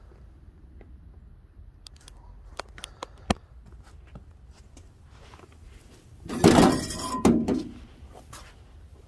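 A few light clicks and knocks, then about six seconds in a loud rustling rattle lasting about a second and a half: a bag of mesquite wood chips being handled over the metal chip pan of a Little Chief electric smoker.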